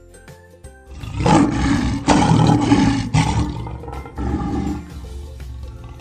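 Lion roar sound effect: a loud roar starts about a second in and comes in two long bursts, then a shorter, weaker third near the five-second mark. Light children's background music plays underneath.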